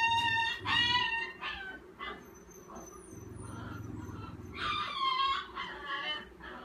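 A fearful puppy crying in high-pitched whines on the leash: two cries near the start and two more about five seconds in.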